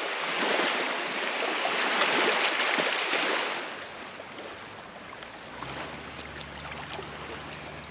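Water sloshing and splashing around a person's legs as he wades out to about waist depth. It is loudest for the first three or four seconds, then quieter, with a low steady rumble coming in near the end.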